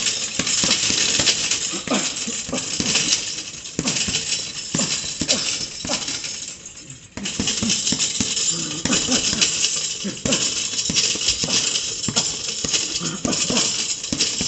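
Boxing gloves striking a double-end bag in quick, irregular flurries of punches as the bag rebounds on its cords, with a brief let-up about six seconds in.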